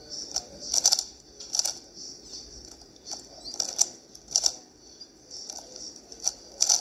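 A plastic 3x3 puzzle cube being turned fast by hand during a solve: its layers click and clack in short bursts of turns, with brief pauses in between.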